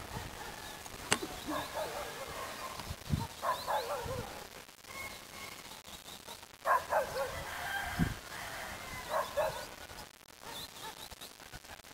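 Roosters crowing faintly several times, with a dog barking now and then. A single sharp click about a second in.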